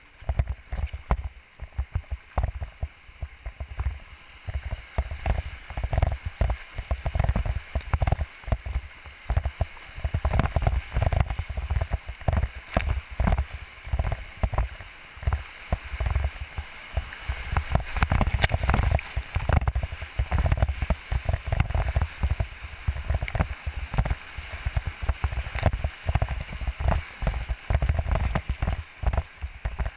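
Whitewater rushing and splashing around the bow of a decked whitewater racing boat running rapids, with dense irregular low thumps of water and buffeting hitting the bow-mounted camera.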